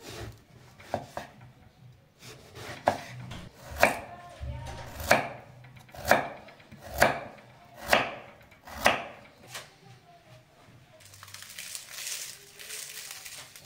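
Chef's knife slicing eggplant and carrot into rounds, each cut ending in a sharp knock on a bamboo cutting board, about one chop a second. Near the end the chopping stops and a few seconds of rustling noise follow.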